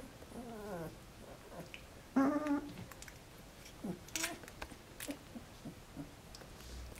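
Twelve-day-old Alaskan Malamute puppies whimpering and squeaking. There is a wavering whine near the start and a louder whine about two seconds in, then short high squeaks around four seconds, with soft little clicks between.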